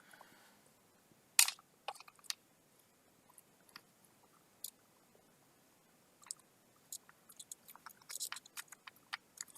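Scattered light clicks and taps of laptop parts being handled, a sharp click about one and a half seconds in and a run of quick small clicks near the end.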